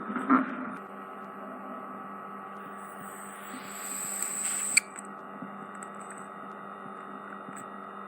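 A steady electrical hum. About halfway through comes a hiss with a high whistle for a second or two, which cuts off with a sharp click.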